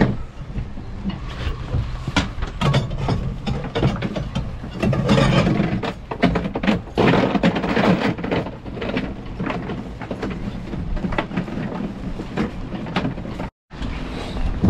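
Repeated knocks, clicks and clatter of fishing gear and catch being handled on a boat deck, over a steady low rumble.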